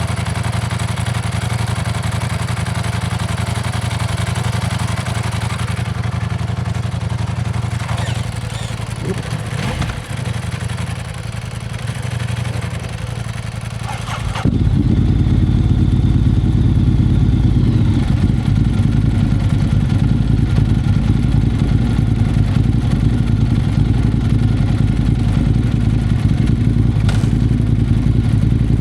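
Ducati Monster 1100 EVO's air-cooled L-twin running steadily through Termignoni exhausts. About halfway through, the sound suddenly becomes louder and stays there.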